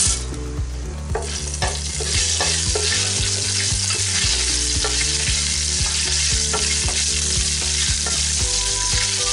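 Whole spices (bay leaves, fennel seeds, cloves, cardamom and cinnamon) sizzling in hot ghee in a nonstick pot while a wooden spatula stirs them. The sizzle grows after the first second and then holds steady.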